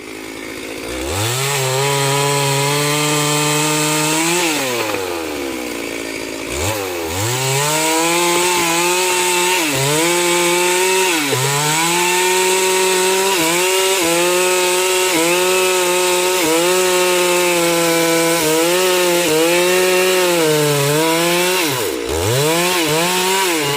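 Two-stroke chainsaw running at high revs. Its pitch sags and recovers about once a second as the chain is loaded in the wood. It drops off twice, briefly, and is revved straight back up.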